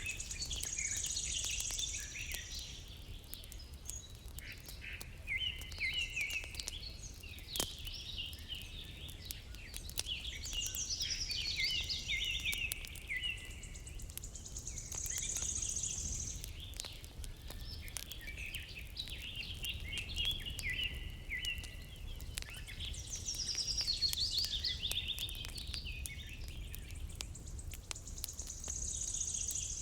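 Songbirds singing, with the same phrase repeated several times: quick descending trills, each ending in a high, buzzy note. Under the song are a low steady rumble and scattered sharp crackles of a wood fire.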